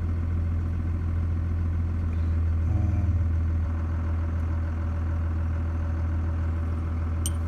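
Steady low hum of an idling vehicle engine, with a few light metallic clicks near the end.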